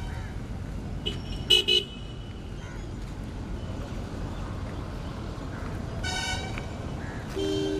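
Vehicle horns honking: two short toots about a second and a half in, a longer one about six seconds in, and a two-tone blast near the end, over a steady outdoor background noise.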